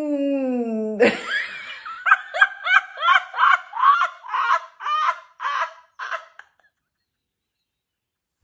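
Deliberate laughter-yoga laughter from one person: a drawn-out vocal tone that slides up and then down in pitch, breaking about a second in into a rhythmic string of 'ha-ha' laugh bursts, about two a second, that fade out a little over six seconds in.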